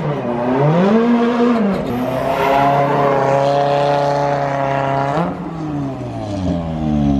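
Ford Fiesta rallycross car, #43, revving hard while spinning donuts. The engine note swings up and down, is held high for about three seconds in the middle, then drops and climbs again, with tyres screeching through the smoke.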